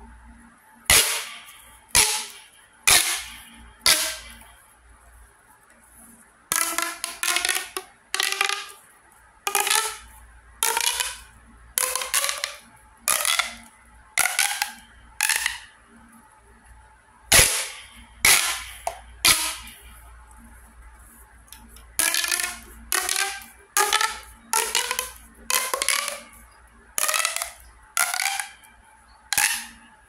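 A blue straw pop tube fidget toy being stretched and squeezed, its ribbed plastic segments snapping open and shut in short ratcheting pops, roughly one a second, with a couple of brief pauses.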